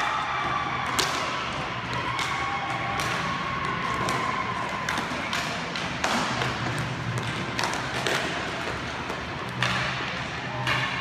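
Scattered sharp knocks and clacks of hockey sticks and pucks hitting the floor of a roller hockey rink, about every second or two, over the steady rolling of skate wheels.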